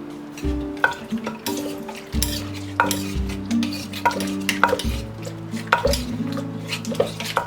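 Pestle knocking and stirring in a Thai mortar, irregular strikes about one or two a second with some dull thuds, mixing the som tum dressing after the lime juice has gone in. Soft guitar background music plays under it.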